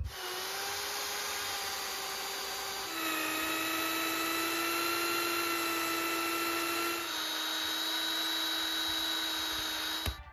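Corded electric drill boring a long auger bit down through an old timber log, its motor giving a steady whine. The pitch steps down about three seconds in, shifts again near seven seconds, and the sound cuts off suddenly at the end.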